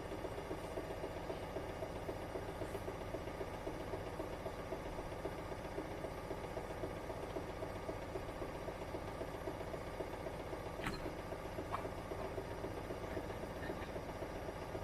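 Zanussi IZ 16 S washing machine running steadily, a constant motor hum with vibration. Two faint clicks come about eleven seconds in.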